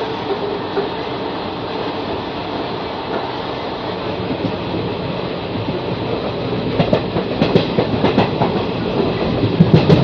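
Express passenger train running at speed, heard from an open coach door: a steady rumble of the coaches, with the wheels' clickety-clack over the rails turning sharper and louder from about two-thirds of the way in as the train runs through a station.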